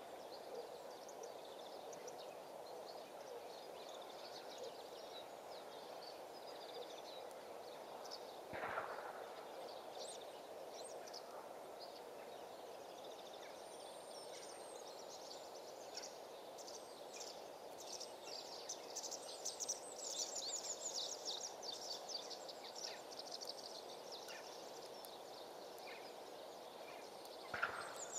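Quiet outdoor background noise with small birds chirping and trilling, busiest in the second half. Two brief louder sounds stand out: one about nine seconds in and one near the end.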